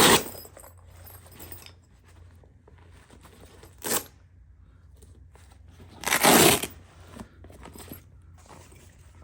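Fabric tool roll being handled, with three short ripping sounds and light rustling and clicks between them. The first rip comes at the start, a brief one just before four seconds in, and the longest about six seconds in.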